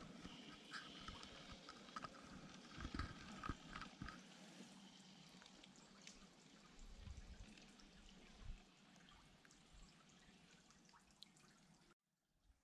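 Faint running of an LGB G-scale model train on garden track: small clicks of the wheels over the rail joints and a faint motor whine in the first few seconds, fading as the train moves away. The sound cuts off suddenly near the end.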